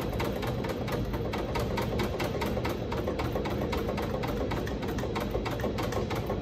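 Hand-worked fuel lift pump on a 1919 Cummins 6 hp Hvid stationary oil engine, pumped by its lever to bring fuel up from the base tank into the gravity-feed tank before starting. It makes a rapid, even clicking, about five or six strokes a second.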